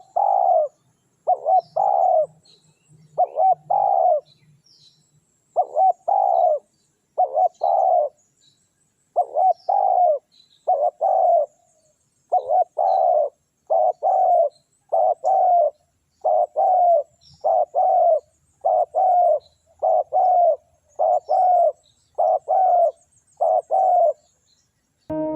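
Spotted dove cooing over and over, each phrase two or three quick coos, about one phrase a second, with faint high chirps of small birds in the background.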